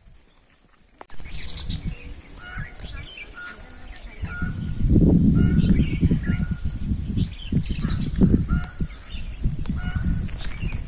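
Crows cawing with other birds calling, short harsh calls repeating every second or so. From about four seconds in, loud low rumbling noise on the microphone lies under the calls.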